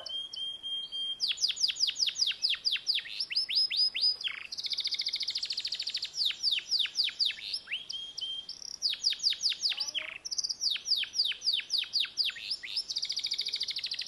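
Yellow domestic canary singing a long continuous song: runs of quick falling whistled notes, about five a second, alternating with fast rattling trills.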